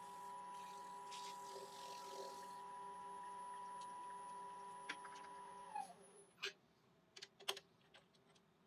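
Wood lathe motor running with a steady whine. About six seconds in it is switched off and winds down, falling in pitch, followed by a few light knocks.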